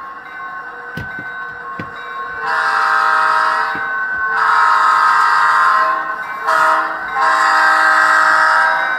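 Sound-equipped model diesel locomotive in Santa Fe paint blowing its recorded multi-note horn through its small onboard speaker: two long blasts, a short one and a long one, the grade-crossing signal. Before the horn, a steady running hum with a couple of sharp clicks about a second in.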